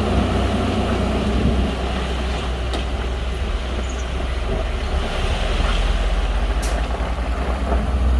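Heavy diesel engine of a Shantui bulldozer running steadily under load, a deep even drone with a couple of faint clicks.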